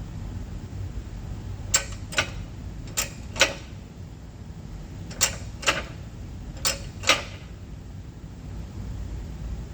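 Shop press being pumped by hand to push a control-arm bushing on: four pairs of sharp clicks, roughly one pair every one and a half seconds, as the pump handle strokes, over a steady low hum.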